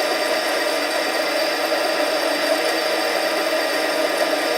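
Harbor Freight 7x10 mini lathe running steadily while turning an aluminium tube, its motor and gear train giving a constant hum with several held tones.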